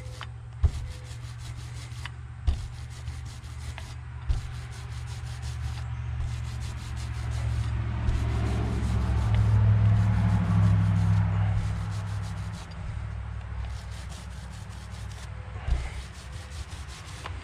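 Paint roller rolling paint onto a garage door, a steady rubbing sound, with a few sharp knocks. A low hum underneath swells and fades midway.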